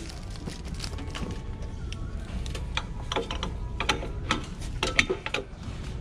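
Bread machine being handled: a run of short plastic and metal clicks and rattles as the bread pan and kneading paddle are moved in their housing, over a steady low hum.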